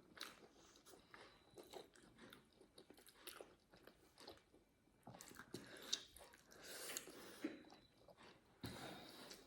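Faint chewing and small wet mouth clicks of people eating steamed pork momo dumplings, with a few slightly louder bites and smacks in the second half.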